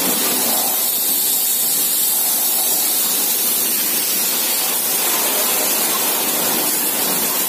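High-pressure water jet from a washer hose lance, hissing steadily as it sprays against the metal bodywork of a backhoe loader.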